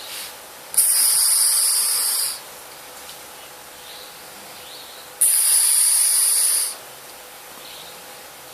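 A sleeping person snoring with loud hissing breaths that sound like a bus's air brakes letting off: two long hisses, each about a second and a half, the first about a second in and the second about five seconds in.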